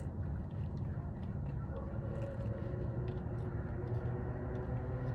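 Steady low mechanical rumble with a faint hum and a few light clicks.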